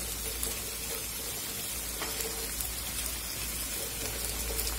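Sliced onions frying in hot oil in an aluminium karai: a steady sizzling hiss with faint small crackles.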